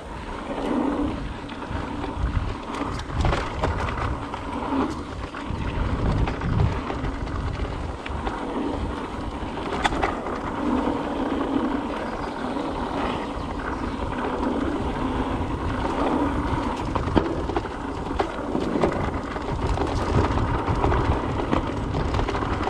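Mountain bike rolling down a dirt flow trail: tyre noise and the bike rattling over the ground, with wind rumbling on the microphone and scattered knocks from bumps.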